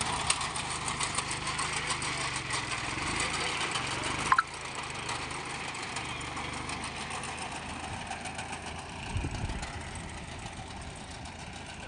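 Mini tractor engine running with its mounted reaper. About four seconds in a sharp click is heard, after which the engine sound is lower and steady, with a brief low surge near the end.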